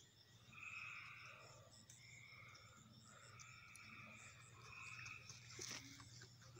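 Faint chorus of trilling frogs and insects at dusk: calls about a second long repeating one after another, with higher chirps above them, over a steady low hum. A single sharp click near the end.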